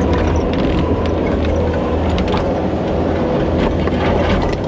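Kubota SVL75 compact track loader's diesel engine running steadily, with a scatter of knocks and clanks, most of them in the second half.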